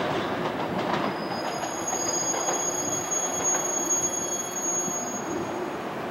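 500 Series Shinkansen train running and pulling away into a tunnel: a steady rumble of wheels on rail, with faint knocks. From about a second in, a high, steady squeal sounds over it for a few seconds.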